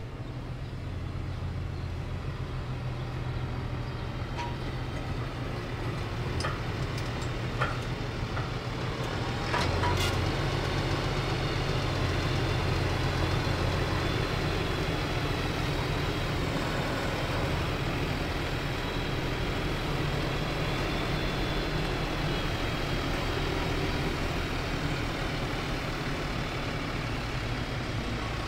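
Fendt tractor's diesel engine running steadily as it pushes chopped alfalfa up a silage pile with a front pusher blade. It grows louder about a third of the way in as the tractor comes closer, with a few light clicks before that.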